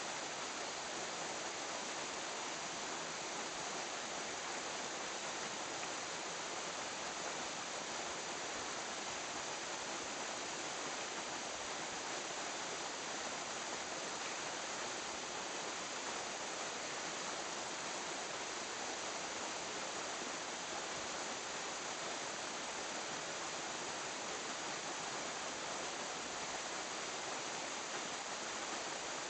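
Steady rushing of running water, even and unbroken, with a faint steady high whine over it.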